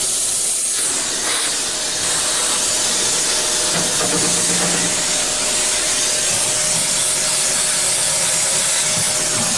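Handheld vacuum cleaner running steadily, with a thin steady whine, sucking up milling chips from a CNC mill's work table.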